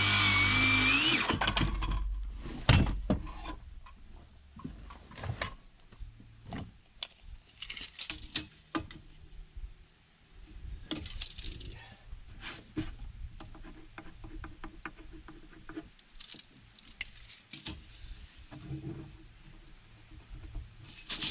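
A power drill-driver runs for about two seconds at the start, its pitch rising slightly. After that come scattered knocks, clinks and short scraping sounds of hands working timber deck boards and screws.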